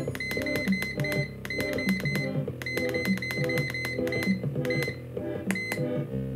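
Background instrumental music with a steady rhythm.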